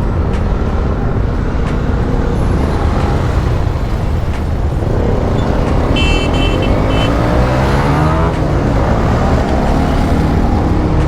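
Motorcycle being ridden on a highway: the engine runs under a constant rumble of wind and road noise. An engine's pitch climbs as it accelerates between about five and eight seconds in, and a horn gives a few short beeps about six seconds in.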